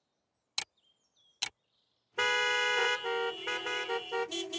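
Two sharp clock ticks, then from about two seconds in several cartoon vehicle horns honking together in long held blasts of different pitches, the honking of a traffic jam.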